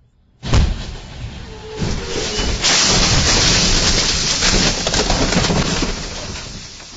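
Vehicle collision: a sudden loud crash about half a second in as a lorry strikes the car and its windscreen shatters, followed by several seconds of loud, rough crashing noise that swells again and then slowly dies away.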